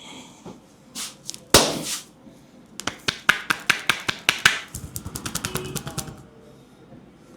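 Hands striking in an Indian head massage: a few light clicks, one loud slap about a second and a half in, then a run of sharp taps about five a second that turns into quicker, lighter patting.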